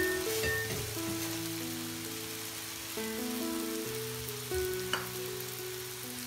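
Chinese chives, egg and carrot sizzling in a hot nonstick wok, with a spatula stirring briefly near the start. Background music with held notes plays over the sizzle.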